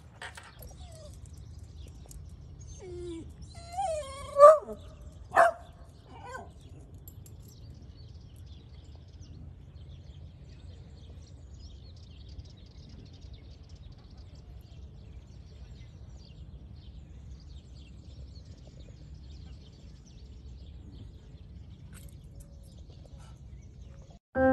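A dog barks and yelps a few times about four to five seconds in, two sharp barks being the loudest. Faint bird chirps follow over a steady low rumble.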